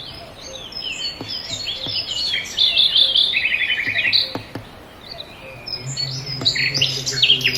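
A small songbird chirping and twittering busily, breaking into fast trills of rapidly repeated notes about halfway through and again near the end.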